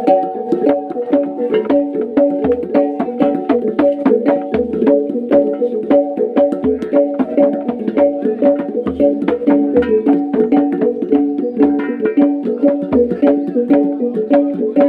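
Traditional Sumbanese funeral music: tuned gongs ringing in a fast, repeating interlocking pattern over low drum beats, struck several times a second at a steady pace.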